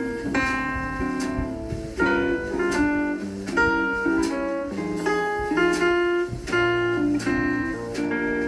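Instrumental background music: a melody of plucked string notes, each note starting sharply and fading, at an unhurried steady pace.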